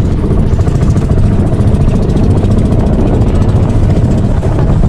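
Outrigger boat's engine running steadily at cruising speed, with a low, even chugging and the rush of water along the hull.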